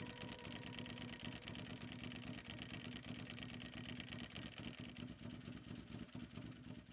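Ducati 999's Testastretta L-twin engine idling with a steady, rapid pulsing beat, fading out near the end.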